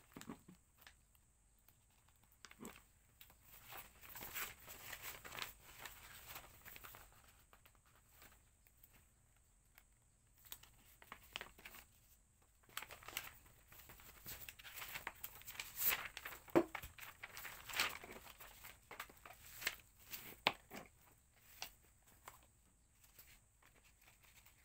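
Packaging being handled by hand: irregular rustling and crinkling with small taps and clicks, busiest in two stretches and quieter between them.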